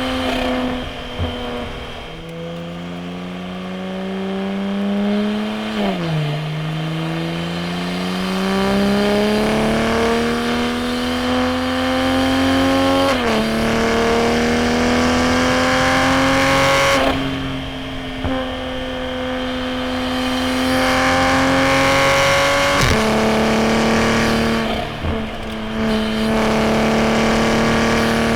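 Straight-piped turbocharged inline-six B58 engine of an A90 Supra with a titanium single-exit exhaust, pulling through the revs under load. The pitch climbs steadily, drops suddenly at each gear change about six seconds in and again near the middle, and holds steady for stretches in between.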